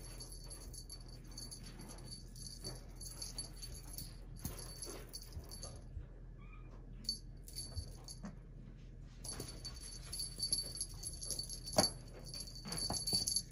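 Persian kitten playing with a feather wand toy: scattered light taps and rustles of paws and toy on the fabric, with a cluster of sharper clicks near the end.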